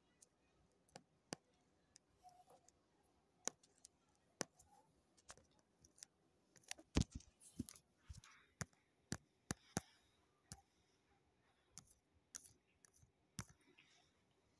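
Faint, sharp clicks at irregular intervals, about one a second, with a louder knock about seven seconds in and a quicker run of clicks just after it.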